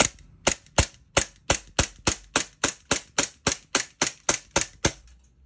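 E&C G19 gas blowback airsoft pistol fired in rapid semi-auto, about seventeen sharp shots at a steady three a second, with the metal slide cycling on each shot. The shots stop just before the end.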